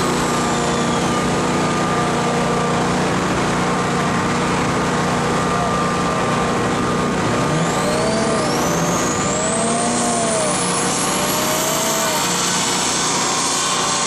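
BMW 3 Series coupe running on a chassis dynamometer: a steady, loud mix of engine and spinning rollers, with a high whine that climbs through the second half as the speed builds.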